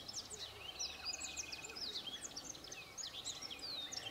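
Several birds singing at once: a dense chorus of short chirps and quick whistled sweeps, overlapping all through, with a buzzy trill running for about a second early on.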